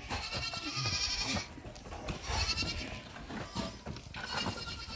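Livestock bleating: a long quavering call at the start, then shorter calls about two and four seconds in.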